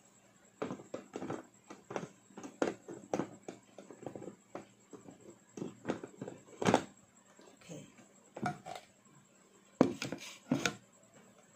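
Irregular light clicks and knocks of the electric meat grinder's plastic bowl, blade and lid being handled and fitted together before it is switched on, the loudest knocks a little before the middle and near the end.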